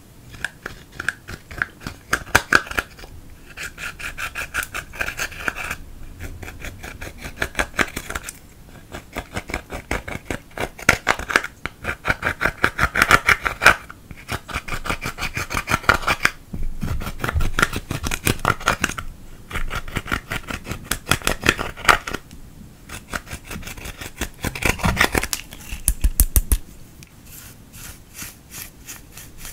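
A metal-tipped dotting tool scraping and crushing pressed eyeshadow powder in a plastic palette, in quick runs of scratchy strokes with short pauses between them. Near the end it turns to softer brushing as a makeup brush works the crumbled powder.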